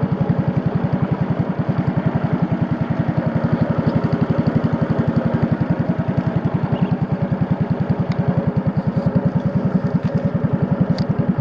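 Motorboat engine running at a steady cruising speed, a fast even pulsing of its exhaust beats with no change in pace.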